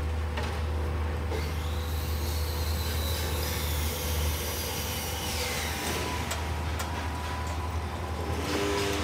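Diesel engine of a concrete pump truck running steadily with a low drone, and a rushing noise that swells and fades over a few seconds midway.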